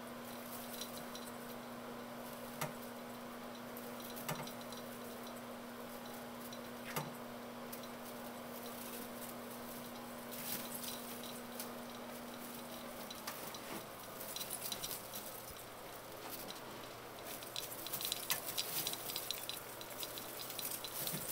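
Rustling and crackling of a Christmas tree's dry, bristly branches and ornaments as a cat climbs around inside it. Sparse clicks at first, thickening into a busy crackle over the last few seconds.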